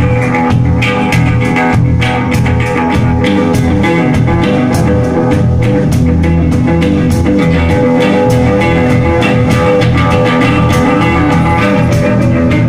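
Live psychedelic rock jam: a Stratocaster-style electric guitar and a second electric stringed instrument playing loudly over a drum kit.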